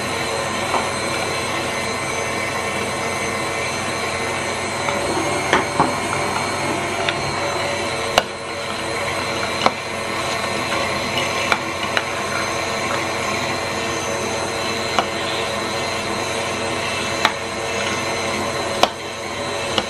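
KitchenAid stand mixer running its metal food grinder attachment at speed 4, grinding raw chicken hearts with a steady motor and gear whine. About ten sharp clicks and knocks are scattered through it.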